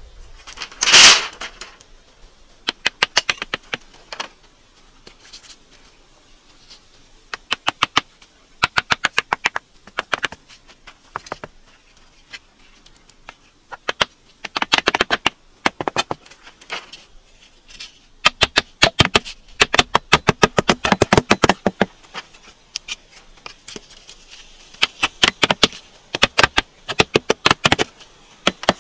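Repeated runs of rapid, sharp clicking taps, each a second or two long with short pauses between, as split bamboo strips are laid and knocked down into a wet mud slab. A single louder crash about a second in, as a bundle of bamboo is set down.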